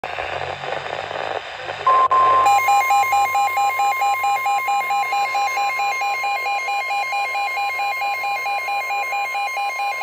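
Weather alert radio sounding a NOAA Weather Radio severe thunderstorm warning. After about two seconds of hiss, the steady 1050 Hz warning alarm tone comes on. Half a second later the radio's own fast pulsing alert beep joins it at about five beeps a second, and the two sound together.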